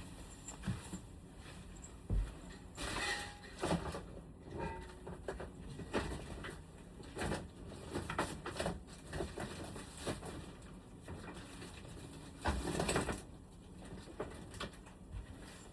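Irregular knocks, taps and clatter of hands at work, with two short noisy bursts about three seconds in and again near thirteen seconds.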